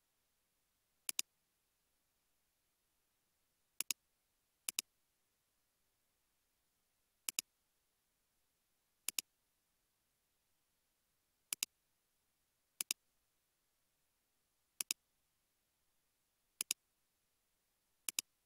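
Computer mouse button clicking, about ten times at irregular intervals a second or more apart, each a quick pair of sharp clicks.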